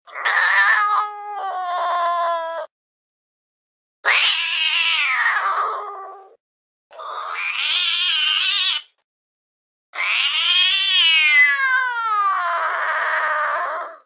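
Domestic cat yowling: four long, drawn-out calls separated by short pauses, the last and longest falling in pitch near the end.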